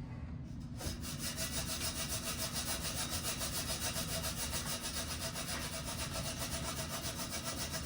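Rapid, even back-and-forth scrubbing on a corroded, pitted bicycle rim, about five strokes a second, starting about a second in: an attempt to clean the crust off the rim.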